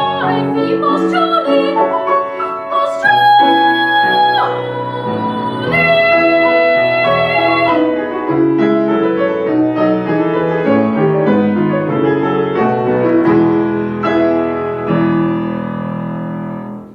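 Classical art song for voice and piano: piano chords with a singer's long held note from about three to four and a half seconds in, then the piano plays on alone to a final chord that cuts off at the end.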